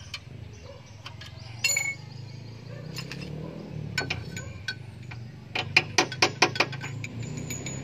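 Metal tools clinking against the wheel hub, then from about five and a half seconds a quick run of sharp metallic clicks, about five a second. A steady low hum runs underneath.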